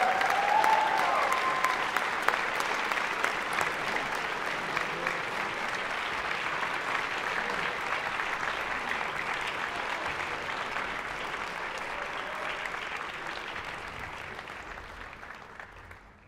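Concert-hall audience applauding with dense, steady clapping that fades away over the last few seconds.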